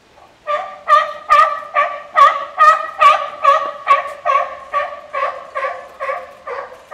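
An animal calling: a loud series of short, even, pitched notes, a little over two a second, starting about half a second in and keeping on.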